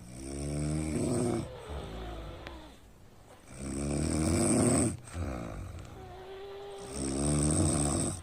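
A person snoring: three long, loud snores about three and a half seconds apart, with quieter breathing sounds between them.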